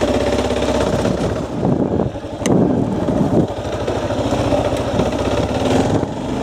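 Motorcycle engine running under way, a steady pulsing engine note that briefly shifts in pitch near the middle.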